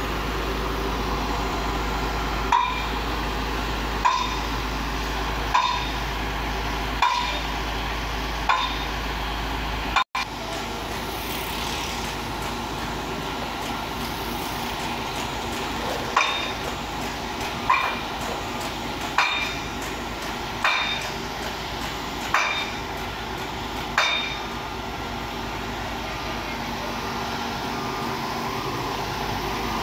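Sharp ringing metal-on-metal strikes, like a hammer hitting steel, one about every one and a half seconds, over a steadily running engine. Six strikes, a brief dropout in the sound about 10 seconds in, then six more strikes.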